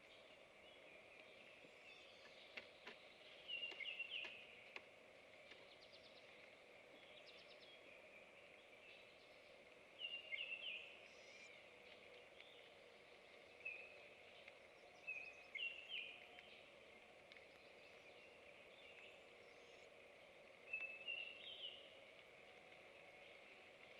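A small songbird singing short, quick chirping phrases, about five of them a few seconds apart, over faint steady woodland background noise. A few faint clicks come a few seconds in.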